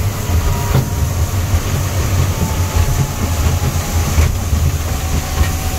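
Honda 115 outboard motor running steadily with the boat under way, a continuous low rumble under the rush of wind and water.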